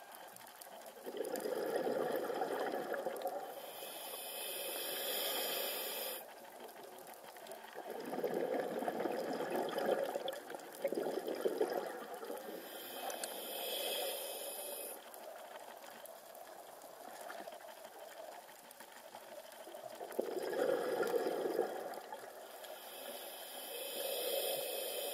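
Scuba diver breathing through a regulator underwater, three slow breaths. Each is a burst of bubbling exhaled air followed by a high hissing inhale through the regulator.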